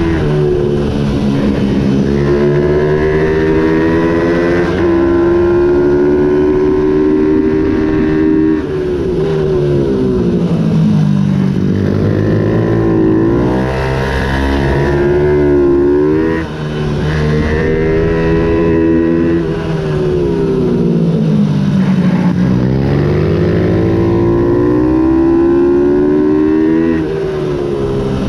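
Ohvale 110 race minibike's single-cylinder four-stroke engine heard from on board at racing speed, its pitch climbing and falling back several times as it accelerates and slows through the corners.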